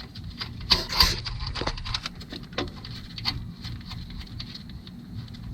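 Scattered light clicks and taps of hand work with a nut and tools on the engine, with a short cluster of louder clicks about a second in, over a low steady hum.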